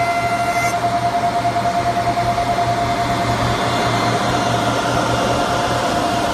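Four-sided wood planer-moulder running: its spinning cutter heads and motors give a steady whine over dense rushing noise.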